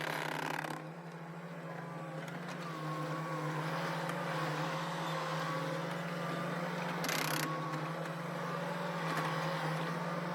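Engine of a small work machine running steadily, with a wavering whine over a low hum. A brief burst of hiss comes about seven seconds in.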